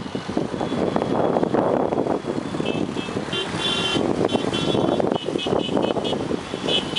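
Road traffic running past, with high-pitched vehicle horns tooting in a run of short blasts from about halfway through.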